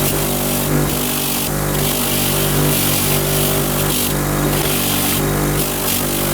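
Electric motor driving a wire wheel, running steadily, with a harsh scratching that swells and eases every second or so as the cast-iron vise is pressed against the wire.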